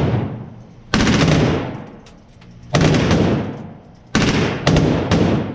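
Full-automatic rifle fire in several short bursts of rapid shots, each burst followed by a ringing tail; the last three bursts come close together near the end.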